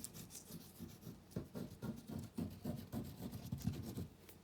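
Quick, irregular scratching strokes on paper, several a second, from glue being spread along the bottom of the sheet.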